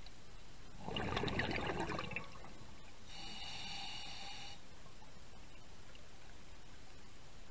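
Underwater scuba breathing through a regulator: exhaled bubbles bubbling out for about a second and a half, then a hiss with a faint whistling tone as the diver inhales.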